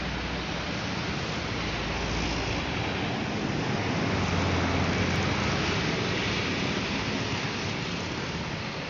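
Coach bus driving past on the road: a steady rush of engine and tyre noise with a low rumble, swelling to its loudest about halfway through.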